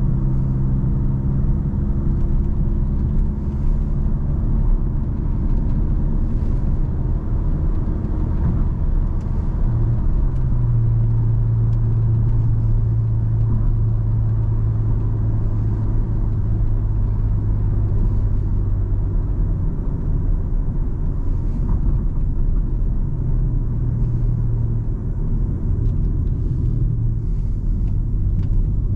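Car engine and road noise while driving: a steady low rumble with the engine note, which slowly falls over the first several seconds, then settles into a steady drone about ten seconds in and shifts again near the end.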